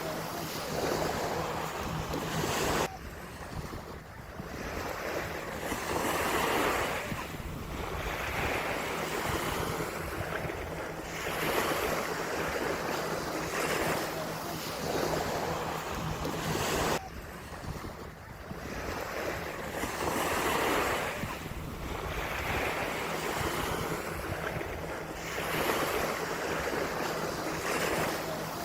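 Ocean surf breaking and washing up a sandy beach, the rush swelling and falling back every couple of seconds, with wind rumbling on the microphone. The sound drops away abruptly twice, about 3 seconds and 17 seconds in.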